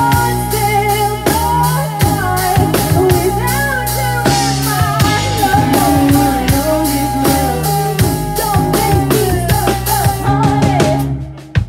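Live rock band playing: a woman singing a held melody over drum kit and electric guitar. Near the end the band drops out and a few separate drum hits follow.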